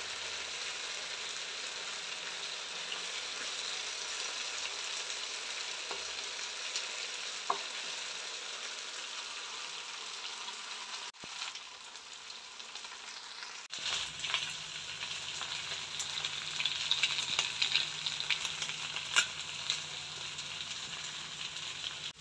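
Masala-coated chicken pieces sizzling and crackling as they shallow-fry in coconut oil in a pan, stirred with a wooden spatula at first. The crackling grows louder and denser about two-thirds of the way through as the pieces near the end of frying.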